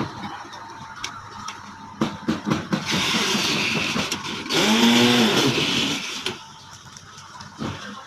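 Water spraying from a hose onto steel rebar and formwork, wetting the deck before the concrete pour. The hiss grows loud about three seconds in and stops about six seconds in. Scattered metal clinks sound, and about halfway through there is a short sound that rises and then falls in pitch.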